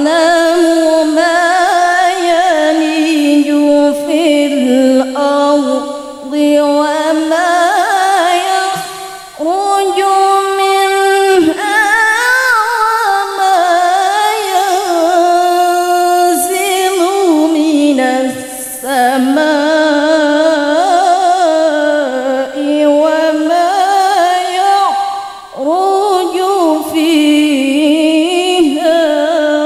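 A woman's voice chanting unaccompanied in long, ornamented melodic phrases with short breaks between them, amplified through a microphone.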